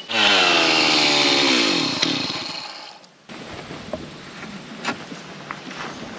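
Chainsaw revved high and then released, its engine pitch falling steadily as it winds down over about three seconds before cutting off. A few faint clicks and knocks follow.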